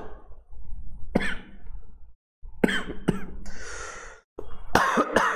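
A man coughing, about five sharp coughs in three short bouts.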